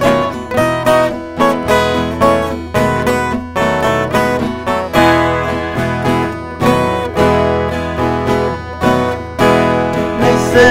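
Viola caipira and acoustic guitars playing an instrumental passage together, plucked notes ringing over strummed chords at about two strokes a second.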